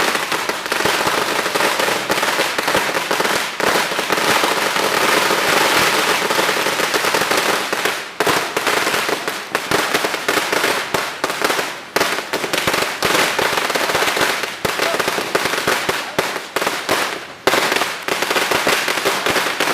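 A Sinturon ni Judas firecracker string, a long belt of linked firecrackers, going off in a rapid, unbroken run of sharp bangs.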